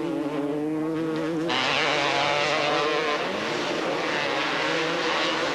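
Two-stroke 250cc motocross bike engines running hard at race speed, revving up and down. About a second and a half in, the sound changes abruptly from one steady engine note to a busier, rougher mix of engines.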